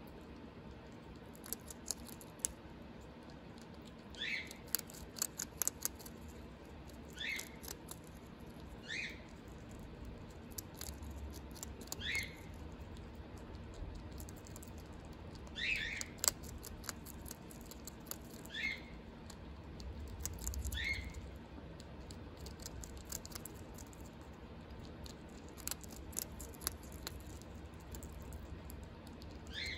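An albino mink crunching dry kibble: quick, irregular crisp clicks of chewing, in runs. Short high chirps come every few seconds among them.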